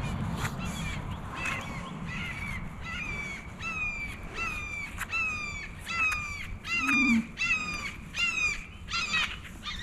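A bird calling over and over: more than a dozen short calls, each falling in pitch, about two a second, running until near the end.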